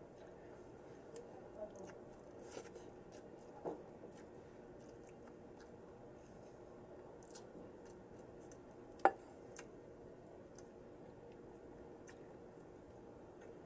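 Close-miked chewing of fried vegetables, soft mouth sounds broken by a few short sharp clicks, the loudest about nine seconds in.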